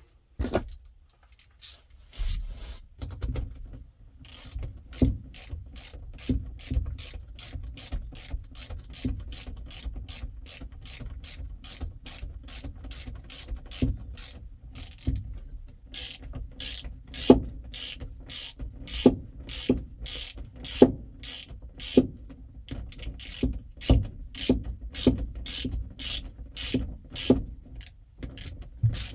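Ratchet wrench clicking in a steady run, about two clicks a second with a few louder ones, as the mounting bolts of a new accelerator pedal are turned in.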